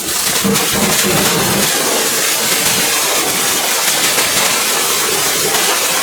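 Pressure washer running and spraying a steady, hissing jet of water.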